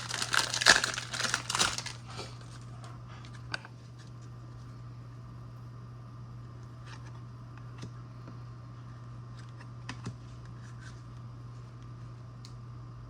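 Trading card pack wrapper crinkling and tearing as it is opened, loud for about two seconds, then only a few faint light ticks of handling over a steady low hum.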